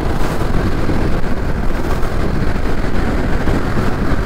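KTM Duke 390 motorcycle at highway speed, accelerating to about 100 km/h: a steady rush of wind over the microphone, with the single-cylinder engine and tyre noise underneath.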